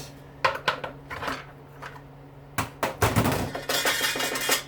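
Metal parts of a dishwasher motor being worked apart by hand: a few separate knocks and clinks, then near the end a second and a half of rapid clattering and scraping as parts that won't come apart are wrestled and pried.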